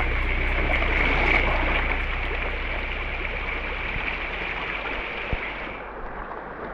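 Shallow river water rushing and rippling over rocks beside a bamboo raft, gradually fading. A steady high-pitched tone runs over it and stops near the end.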